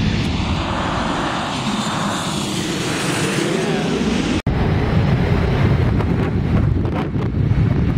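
Jet airliner passing low overhead on final approach, its engine noise sweeping in pitch as it goes over. About four and a half seconds in the sound drops out for an instant, and gusty wind then rumbles on the microphone under the fading jet.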